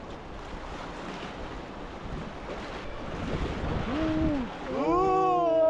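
Rushing whitewater river with wind on the microphone; near the end a person lets out a long, drawn-out vocal cry, the loudest sound.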